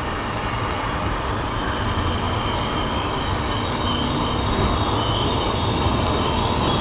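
Trenitalia ETR 485 Frecciargento, an electric tilting train, running slowly and coming closer, its rumble slowly growing louder. From about halfway through, a thin high squeal from the wheels on the curve joins the rumble.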